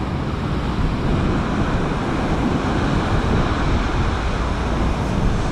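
Storm-driven sea surging and breaking on the shore, with strong wind buffeting the microphone: a steady, heavy rush of noise without a break.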